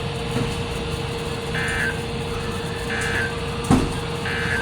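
Three short warbling data bursts about 1.3 s apart from a NOAA Weather Radio broadcast: the EAS/SAME end-of-message tones that close a Required Weekly Test. A steady low hum runs underneath, with a single thump between the second and third bursts.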